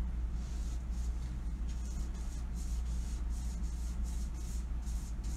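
Paintbrush swishing back and forth, spreading chalk-based paint over the side of a steamer trunk in quick strokes, about two or three a second, over a steady low hum.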